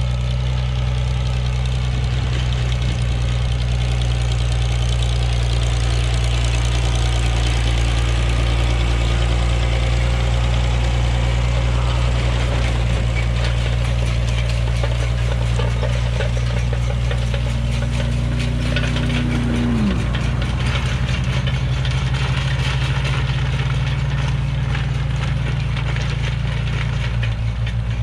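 Old farm tractor engine running steadily. A higher tone rises slightly and then falls away about two-thirds through, and the engine note shifts a little lower near the end.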